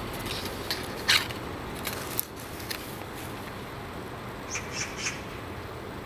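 Paper pages of a handmade scrapbook being turned by gloved hands: short rustles and scrapes, the loudest about a second in, then three quick soft brushing strokes near the end, over a steady background hiss.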